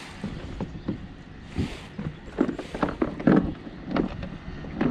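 Handling noise on a plastic sit-on-top fishing kayak: irregular light knocks and thumps that come thicker from about two seconds in, with a brief hiss of wind or splashing about a second and a half in.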